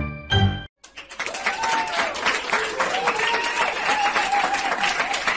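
A short loud burst at the very start, then applause with cheering voices from about a second in, a stock clapping-and-cheering sound effect.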